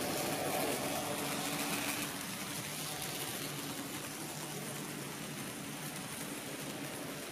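HO-scale model train passing close by: an electric locomotive hauling old-style passenger coaches, its wheels rolling on the rails with a steady hiss and a steady hum from the locomotive, a little louder in the first two seconds.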